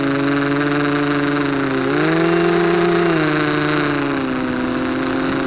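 ZMR250 racing quadcopter's brushless motors and propellers whining, heard from a camera on board. The pitch rises about two seconds in as the throttle goes up, holds briefly, then falls back.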